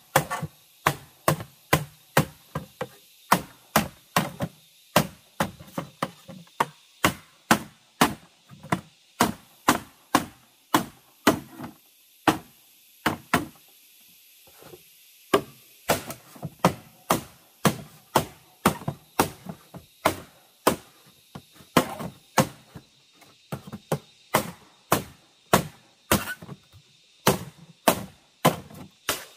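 Axe chopping wood: a steady run of sharp strikes, about two a second, with a pause of a couple of seconds midway.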